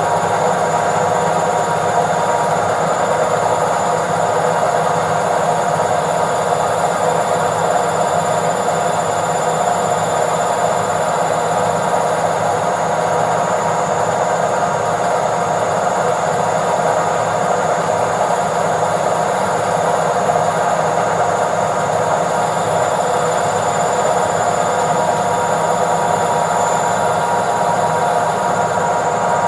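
Washing machine in its spin cycle, a steady whirring hum with several held tones over an even rush of noise, unchanging throughout.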